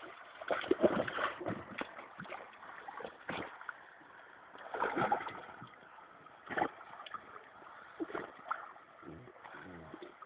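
Irregular splashing and sloshing of river water as a Rottweiler swims, with louder splashes about a second in and again around the middle.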